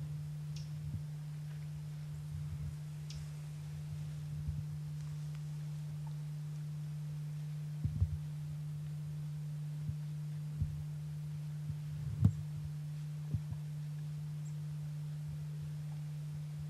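A steady low hum throughout, with several short low thumps in the second half, the loudest about twelve seconds in.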